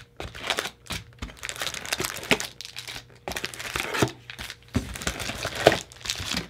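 Trading-card packaging being crinkled and torn open by hand, with irregular crackles throughout.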